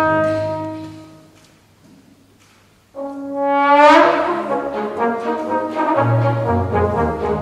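Orchestral brass led by trombone. A held chord dies away. About three seconds in, a loud sustained brass note enters suddenly and swells, growing brighter, and more brass playing follows.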